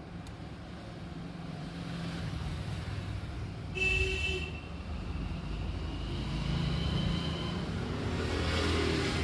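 Road traffic rumbling past, swelling and fading, with a short vehicle horn toot about four seconds in.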